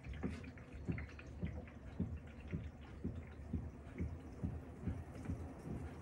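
Panasonic top-loading washing machine washing: laundry churning and sloshing in water in the tub, with a soft low thud about twice a second as the load is swung round.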